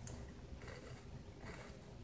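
A person chewing Pringles potato crisps with the mouth closed: faint crunching, about one chew every three-quarters of a second.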